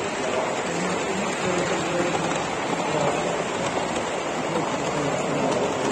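Steady background hubbub of a large echoing hall, with indistinct voices mixed into a constant wash of noise.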